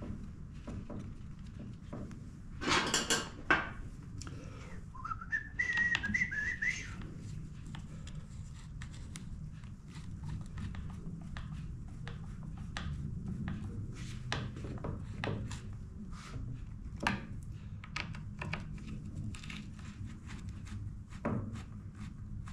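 Hand tools and parts worked on a Husqvarna 455 Rancher chainsaw on a metal workbench: a loud clatter of two knocks about three seconds in, a short rising whistle a couple of seconds later, then scattered light clicks and taps as screws are driven into the saw's cover with a T-handle wrench, over a low steady hum.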